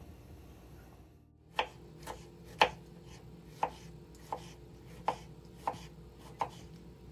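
Kitchen knife chopping a tomato on a plastic cutting board: eight sharp knocks, roughly two every second and a half, starting about one and a half seconds in.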